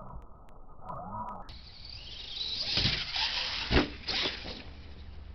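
A radio-controlled monster truck's motor whining, its pitch rising and falling, for about the first second and a half. Then a hiss with several sharp knocks, the loudest about three and three-quarter seconds in.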